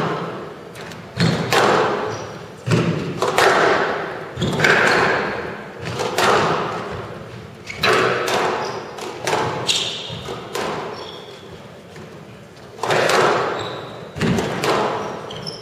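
Squash rally: the ball is struck by racquets and smacks off the court walls, sharp knocks about every second or so that ring out in the hall. There is a short lull in the strikes near the middle.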